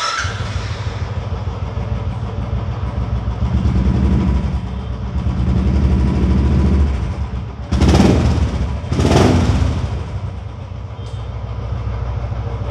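Motorcycle engine with an aftermarket exhaust running, with a steady low note that rises for a few seconds, then two sharp throttle blips about a second apart.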